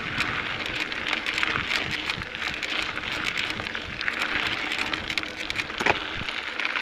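Mountain bike rolling over a dry dirt singletrack: a steady gritty crunch of tyres on grit and small stones, full of small clicks and rattles from the bike, with a sharper knock near the end.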